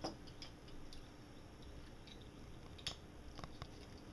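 Small plastic toy pieces being handled and pressed together: a few faint clicks, one at the start and a couple near the end.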